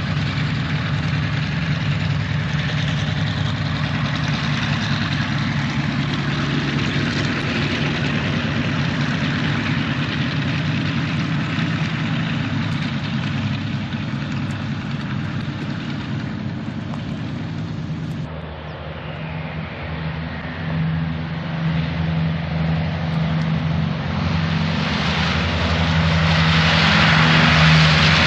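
Aircraft engines running steadily, with a low, even drone. The sound changes abruptly about two-thirds of the way through, then grows louder near the end.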